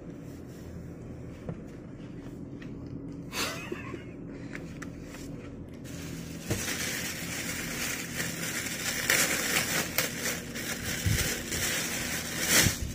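Cloth rustling and scraping close to the microphone as a T-shirt is pulled off and another pulled on, loudest in the second half, over a steady low hum.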